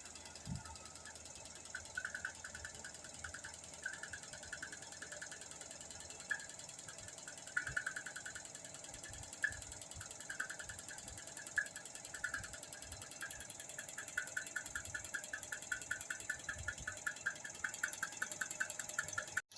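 Carpet spinner converted from a used washing machine, running with a rapid mechanical clicking over a steady hiss. The clicking is uneven at first and settles into a fast, even ticking in the second half.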